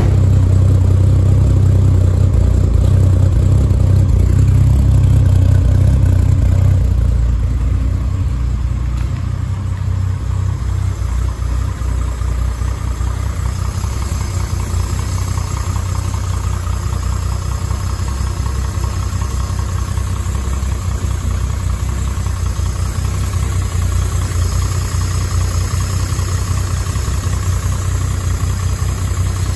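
Triumph Vitesse 2-litre straight-six idling steadily through a stainless steel exhaust, louder at first and settling a little quieter from about seven seconds in. The engine is freshly rebuilt, on its first run with refurbished twin carburettors that are not yet tuned or balanced.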